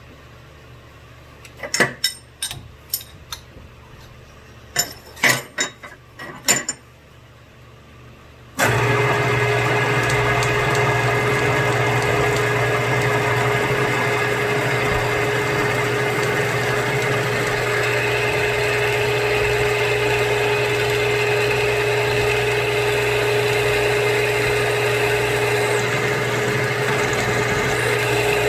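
A few sharp clicks and knocks in two quick groups, then a milling machine's spindle motor starts abruptly about a third of the way in and runs steadily with a constant hum and whine.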